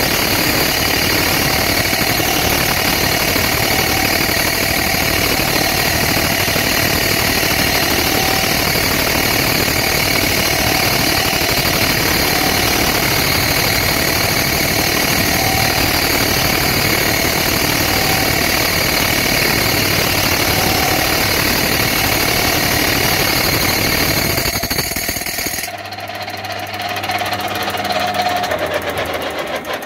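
Metal lathe with a heavy parting tool cutting into a spinning metal wheel to remove its centre: a loud, steady cutting noise with several high ringing tones. About 26 seconds in the cut stops, leaving the lathe's motor humming, and near the end a tone falls in pitch.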